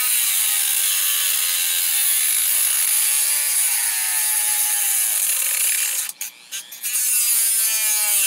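Small corded rotary tool running at high speed and cutting the metal prongs off a plug-in AC/DC power adapter held in a vise, a loud whine that wavers in pitch as it bites. It cuts out in a few short breaks about six seconds in, runs again, then stops at the end.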